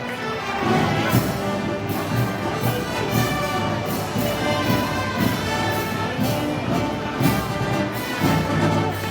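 Brass band playing festival march music, with held brass chords over a steady percussion beat.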